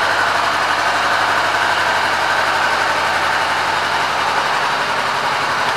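2014 Honda CBR500R's parallel-twin engine idling steadily.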